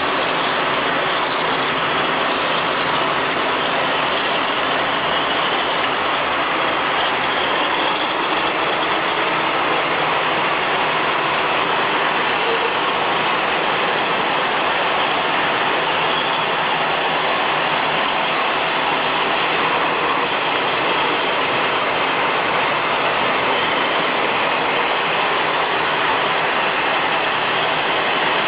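Automatic glass bottle washing machine running: a steady, unchanging mechanical noise.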